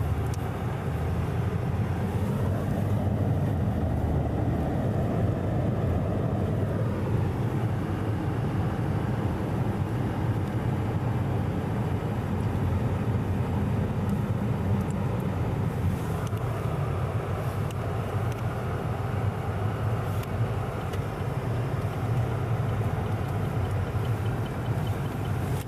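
Steady road and engine rumble of a car heard from inside the cabin while driving on wet roads, with a swell in the noise a few seconds in.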